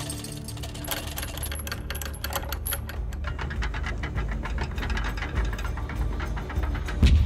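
Rapid mechanical rattling and clicking over a steady low rumble, then one heavy boom near the end: artillery being readied and fired.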